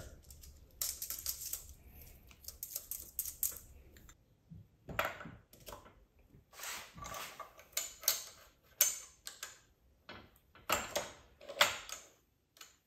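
Irregular metallic clicks and clinks, in small clusters, from steel transmission parts as a helical sixth gear is slid onto the input shaft by hand and turned to seat against its synchro ring.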